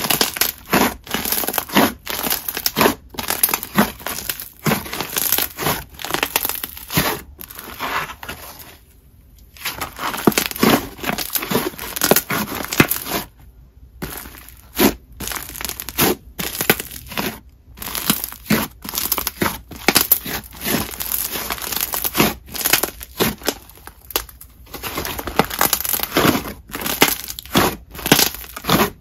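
Thick clay slime with a crunchy snow-fizz texture being pressed and folded by hand, giving a dense run of crackly, crushing pops. The sound stops briefly twice, about a third of the way in and again about halfway.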